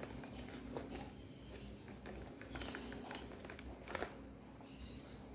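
Paper flour bag rustling and flour being poured into a plastic blender jar: faint rustles and light taps, with one sharper tap about four seconds in.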